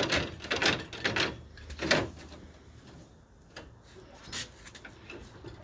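A quick run of knocks and clatter for about two seconds, then quieter with a few single knocks, from handling the freshly pulled engine and crane in the workshop.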